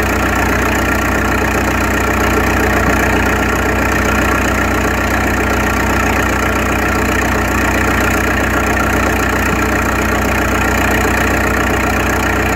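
Old Gardner-Denver portable air compressor running steadily. It is the machine that supplies starting air to a 600 hp Snow gas engine.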